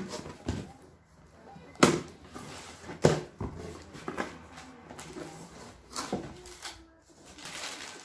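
Cardboard box being pulled open and handled, flaps knocking and thumping sharply several times, with rustling of the packaging in between.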